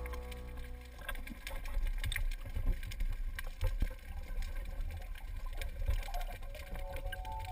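Underwater sound picked up by a camera in its housing: a low rumble of water moving past, with scattered crackling clicks. Background music fades out at the start and comes back faintly near the end.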